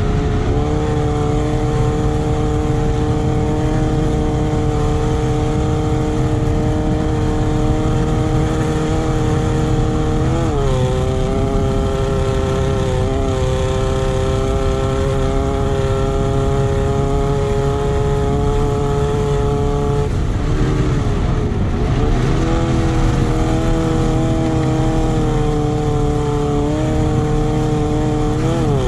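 Off-road race buggy's engine heard from on board, running hard at a steady high pitch. Its pitch dips briefly and climbs back about ten seconds in, again around twenty seconds, and near the end.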